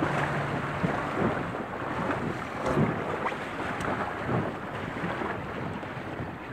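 Wind buffeting the microphone and water sloshing against the hull of a small open motorboat at sea. The low steady hum of its Honda four-stroke outboard dies away about a second in.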